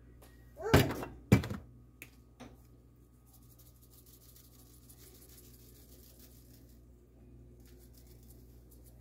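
Two loud knocks about a second in, followed by a few lighter clicks, from plastic seasoning shaker bottles being handled and set down over a metal sheet pan of ribs.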